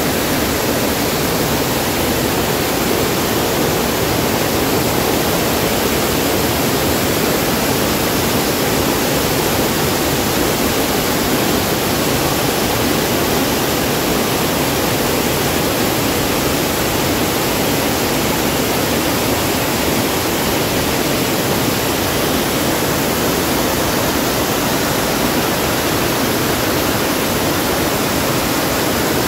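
A waterfall rushing steadily, an even roar of falling water with no breaks.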